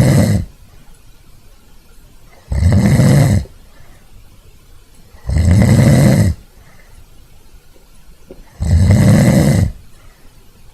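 Loud snoring, each snore about a second long and coming roughly every three seconds: the end of one at the start, then three more.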